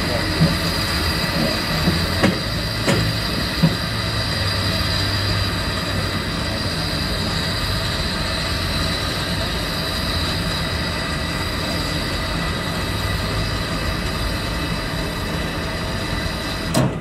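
Narrow-gauge steam locomotive standing at a water crane taking on water, giving a steady hiss and rush throughout. A few short metallic clanks come in the first four seconds, and a sharp knock comes just before the end.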